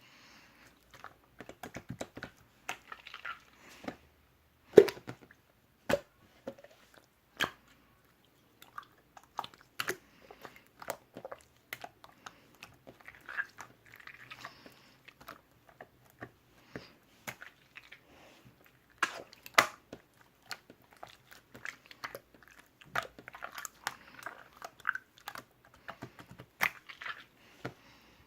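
Close-up chewing and biting into something crunchy: irregular sharp crunches and clicks, with short pauses between bites.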